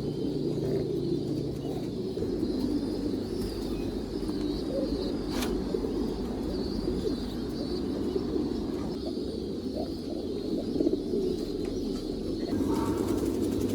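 Many domestic pigeons cooing together in a loft, a continuous overlapping murmur. A single sharp click comes about five seconds in.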